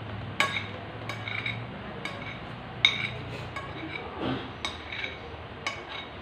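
Metal spoons clinking and scraping against dinner plates: about eight light, separate clinks with a short ring, the loudest about three seconds in, over a low steady hum.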